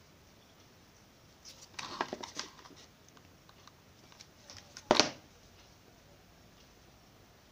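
Handling noises of ribbon crafting: a flurry of short rustles and clicks about two seconds in, then one sharp knock about five seconds in, which fits the hot glue gun being set down on the wooden table.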